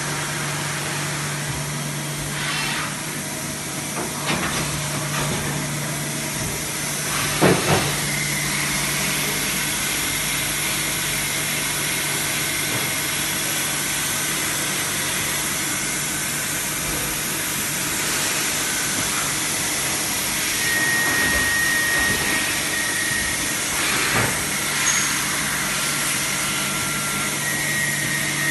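Steady hum and hiss of running industrial machinery, with a few scattered knocks, the loudest about a quarter of the way in, and faint high whistles coming and going in the second half.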